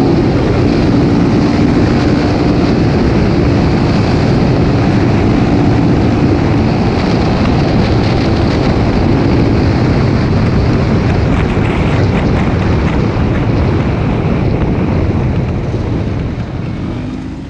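Dirt bike engine running at speed on the bike-mounted camera, heavily buffeted by wind on the microphone. The sound eases off near the end.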